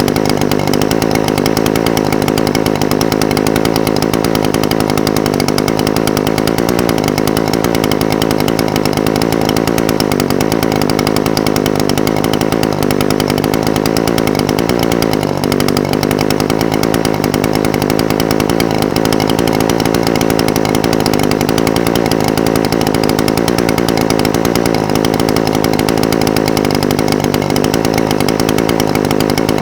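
Echo SRM-420TES brush cutter's two-stroke engine idling steadily, its pitch wavering slightly a few times.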